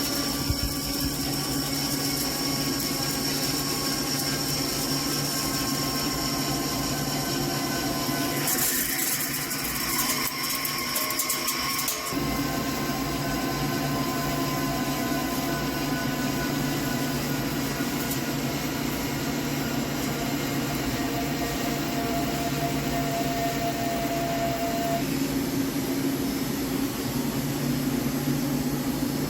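Hankook PROTEC-9NC CNC lathe running steadily while turning a steel pinion shaft, a constant machine hum with a few steady whining tones that slowly sink in pitch. A hiss joins in about nine seconds in and stops a few seconds later.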